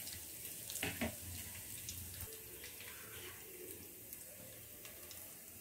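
Hot oil sizzling softly in a pot as a tempering of vadagam, cumin and asafoetida fries, with a few faint crackles about a second in.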